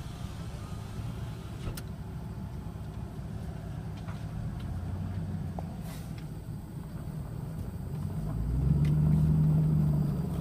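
Chevrolet Silverado 4.8 L Vortec V8 running through a muffler-delete exhaust, its muffler replaced by a length of chain-link fence post pipe, giving a low steady rumble while under way. About eight seconds in it swells louder into a deeper drone for about two seconds, then eases off.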